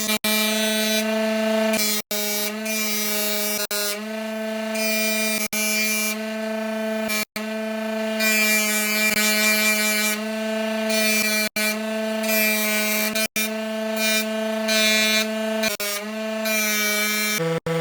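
Steady, unchanging drone of a machine motor at a fixed pitch, cut off by short gaps every second or two. Its pitch drops just before the end.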